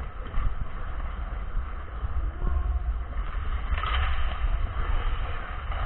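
Wind rumbling on the microphone of a camera worn by a skater, over the scraping hiss of skate blades on ice, with a brief louder scrape about four seconds in.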